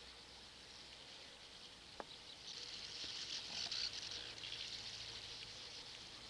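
Insects chirring steadily in a high-pitched chorus, swelling louder for a couple of seconds near the middle. A single sharp click about two seconds in.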